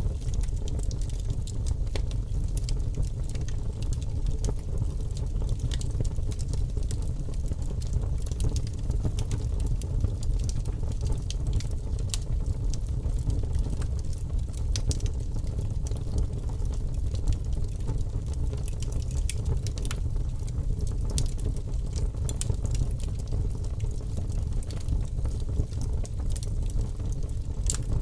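Steady low rumble with a continual scatter of small crackles and pops, from a cozy indoor ambience mix.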